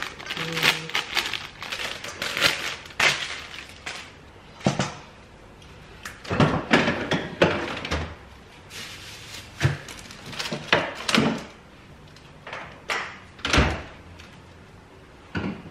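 Plastic produce bag rustling and crinkling, then a refrigerator door opening and jars and containers on its shelves knocked and moved about in a series of separate clunks.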